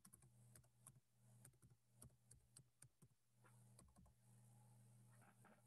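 Faint typing on a computer keyboard: about a dozen irregular key clicks over the first three seconds, over a low steady hum.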